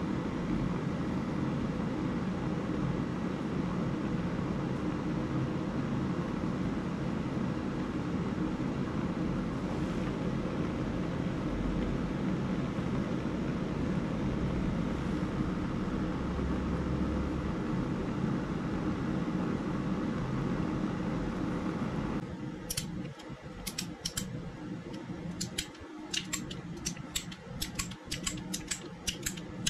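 A steady rumbling hiss with a faint low hum, which cuts off about 22 seconds in; a quick run of sharp clicks and taps follows.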